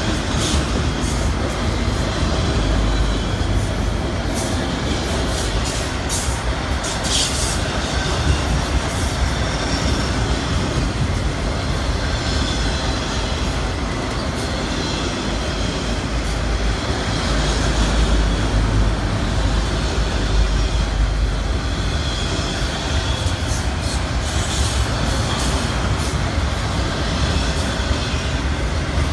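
A freight train's autorack cars rolling past: a steady rumble of steel wheels on the rails, with scattered sharp clicks.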